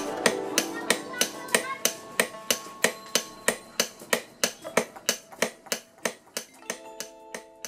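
Two blacksmiths striking steel on an anvil with hand hammers in turn, an even rhythm of about three sharp metal-on-metal blows a second that grows quieter toward the end. The steel is scrap from old bombs being reforged.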